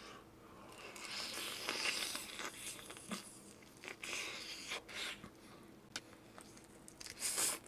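Close-up eating: crunchy bites and chewing of fried food, in irregular crackling bursts with the loudest burst near the end.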